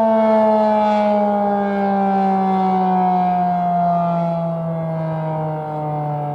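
Federal Signal 2001 electromechanical outdoor warning siren winding down at the end of its test: one steady wailing tone sliding slowly and smoothly lower in pitch while it gradually fades.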